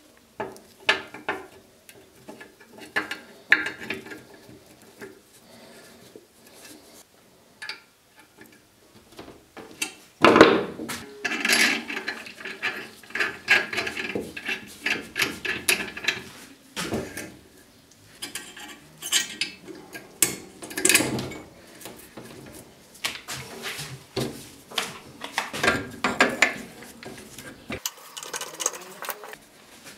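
Irregular metallic clinks, knocks and scrapes of steel parts and hand tools being handled, with a louder cluster of knocks about ten seconds in; no grinder motor running.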